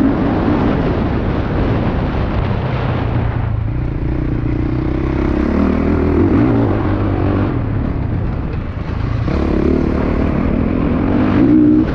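Honda CRF450R 2021 single-cylinder four-stroke motocross engine revving up and down as the rider accelerates and backs off around a dirt track. The engine note eases about three and a half seconds in, then picks up again. Steady wind rush is heard on the bike-mounted camera.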